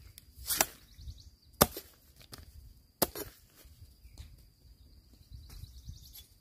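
A few sharp chopping knocks at irregular intervals, the loudest about one and a half seconds in, over a faint steady high tone.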